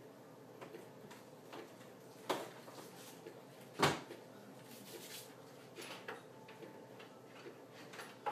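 Kitchen clean-up clatter: a cupboard door and things being put away, heard as scattered light clicks and knocks. The two loudest are a knock about two seconds in and a sharper one about four seconds in.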